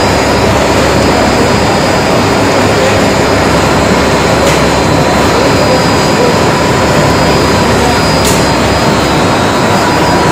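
Spindleless rotary veneer peeling lathe with two electric motors running, a loud steady mechanical noise with a thin constant whine.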